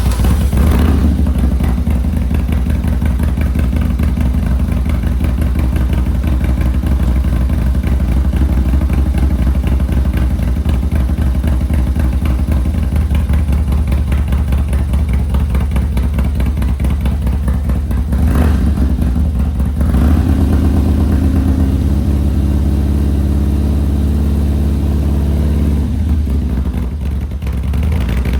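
V-twin motorcycle engine with a freshly installed Andrews TW50 cam, idling on choke just after its first start. Its note rises briefly about 18 seconds in and runs a little higher for several seconds before settling back.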